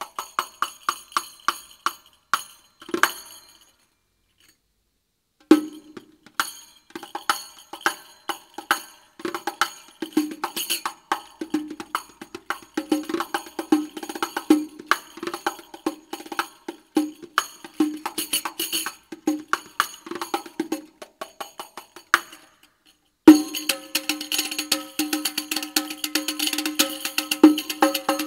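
Riq, a Turkish-style frame tambourine with large metal jingles, played solo with the hands. A short run of strokes, a pause of about two seconds, then a steady rhythm of deep head strokes and jingle hits. After a brief break near the end, a loud accent starts a dense, continuous jingle roll.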